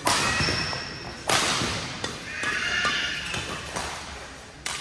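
Cheering and shouting voices erupt suddenly, then swell again about a second later, and slowly die down: a reaction to a rally in a badminton match.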